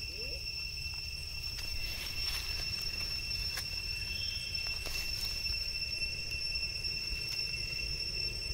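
Steady, high-pitched insect drone over a low rumble, with a few faint crackles and ticks of dry leaf litter as the monkeys move over it.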